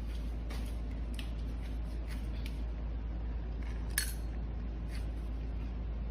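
A few light clicks and clinks, the sharpest about four seconds in, over a steady low hum.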